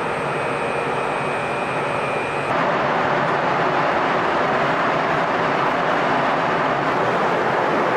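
Steady loud rushing noise with no clear pitch, carrying a faint high whine that stops as the noise steps up louder about two and a half seconds in.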